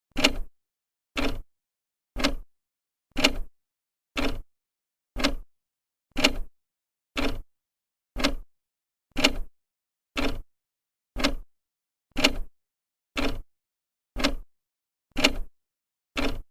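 Old clock's second hand ticking, one sharp tick each second, each tick a quick double click, with silence between.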